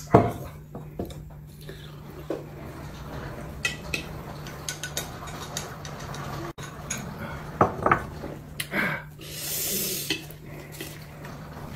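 Ceramic bowls and chopsticks knocking and clinking against a plate at a dining table, with a loud knock right at the start as a bowl is set down on the plate, then scattered light clicks.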